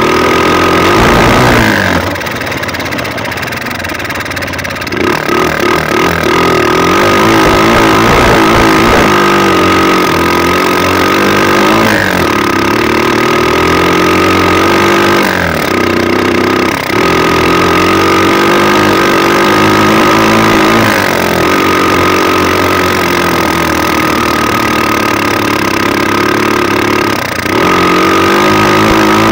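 Zongshen 150cc SOHC single-cylinder four-stroke engine running under way on a test ride, its revs rising and falling as the throttle is worked. There are several short dips where the engine note drops before it climbs again, one longer quieter stretch a couple of seconds in, and a steady high whine underneath.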